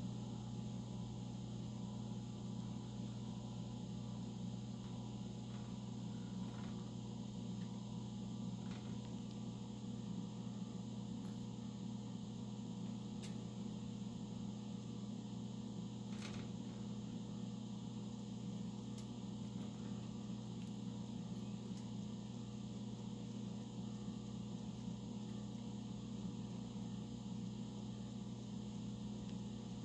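Steady low hum from a fan or appliance, with a few faint scattered clicks and taps from pet rats eating berries and moving about in a wire cage.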